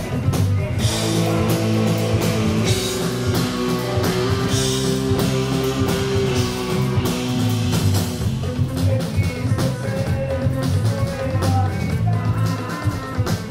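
Live rock band playing loud amplified music: electric guitar, bass guitar and drum kit, with held guitar notes over steady drum hits.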